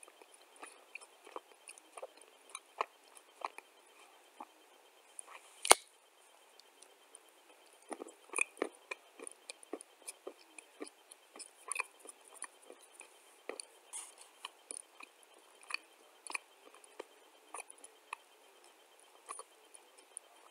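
A chunk of dry clay being bitten and chewed close to the microphone: a run of small crisp cracks, with one sharp, much louder crack a little before six seconds in and denser crunching from about eight seconds on.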